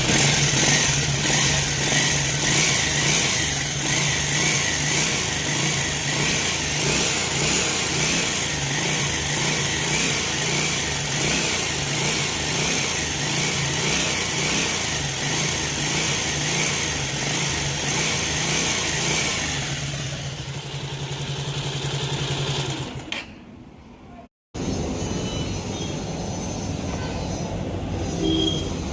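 Bajaj Pulsar 180F's single-cylinder engine running steadily with the unwanted engine noise that the bike is being checked for. The sound fades about 23 s in, breaks off briefly, then a quieter running sound carries on.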